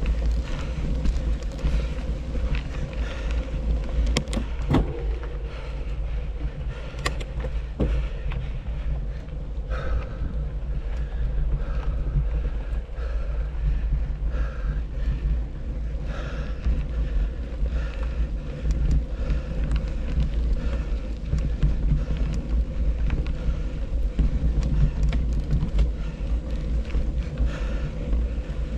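Riding a mountain bike on a trail, heard through a bike- or helmet-mounted action camera: wind buffeting the microphone and the tyres rumbling over the ground, with scattered sharp clicks and rattles from the bike.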